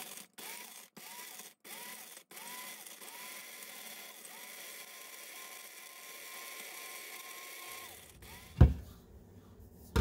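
KitchenAid blade coffee grinder pulsed in a series of short bursts, its motor whine rising each time it spins up, then held on for a couple of seconds before stopping, as it grinds dehydrated lemon and lime slices toward powder. A single thump follows near the end.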